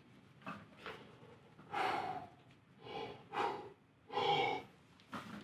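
A deadlifter taking a series of short, forceful breaths while gripping and setting up over a heavy barbell, bracing for the pull. There are about five or six breaths, the loudest around two seconds and four seconds in.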